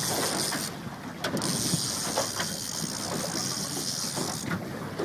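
Wind buffeting the microphone and water washing around a small outboard-powered boat, with scattered irregular clicks and rattles. The high hiss of the wind drops out briefly about a second in and again near the end.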